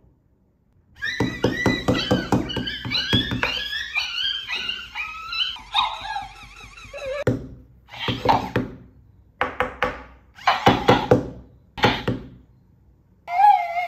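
Electronic plush toy dog playing its recorded dog sounds through a small speaker: several seconds of wavering, falling yelping, then a handful of short barks about a second apart. Its mechanism clicks and thunks as it flips over.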